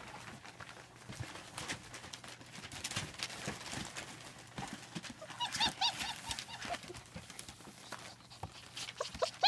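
German Shepherd puppy whining in a quick run of about six short, high squeaks about halfway through, amid light scratching and tapping.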